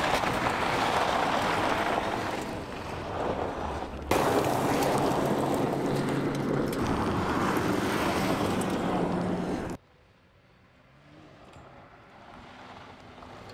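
Lada 4x4 off-roader driving, its engine running under heavy wind and rumble noise on the microphone. The sound cuts abruptly about four seconds in and again near ten seconds, after which only a faint engine hum is left.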